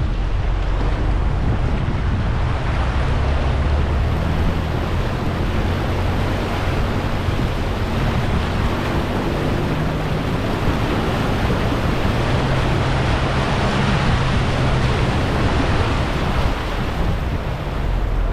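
A 4x4's engine running low under a loud, steady rush of water, as at a shallow river crossing.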